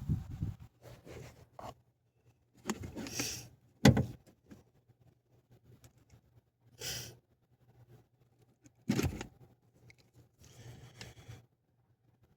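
Scattered handling noises from working a hand wire stripper on thin speaker wires: short rustles and a few sharp clicks, with quiet gaps between.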